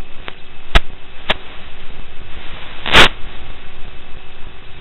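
Steady hiss of static on a recording made through FPV goggles, with two sharp clicks about a second in and a loud crackling burst about three seconds in.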